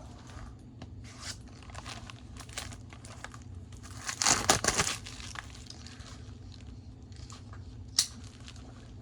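Foil Pokémon booster pack wrapper crinkling and rustling as it is handled and opened, with a louder rustle about four seconds in and a sharp click near the end.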